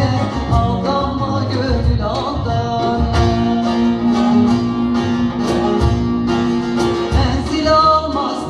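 Live Turkish folk song (türkü) sung by a female soloist into a microphone, accompanied by an ensemble of bağlamas and a def frame drum.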